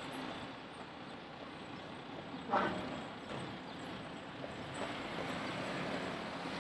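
Road traffic: a steady hum of passing vehicles on a town street. About two and a half seconds in there is one brief, louder sound whose pitch falls sharply.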